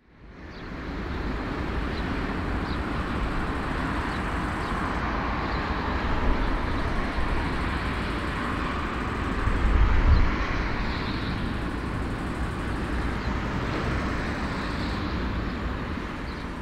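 Jet engines of an Airbus A340-300 airliner running at taxi power, a steady distant rumble and hiss that fades in at the start and swells briefly about ten seconds in.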